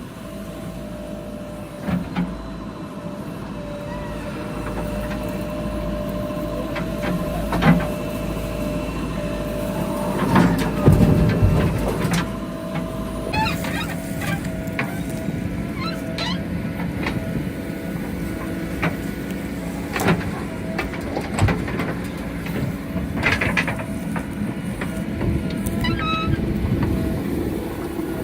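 JCB 3DX backhoe loader's diesel engine running steadily at work, with a constant whine over it and scattered clanks and knocks, the loudest a couple of seconds before the middle.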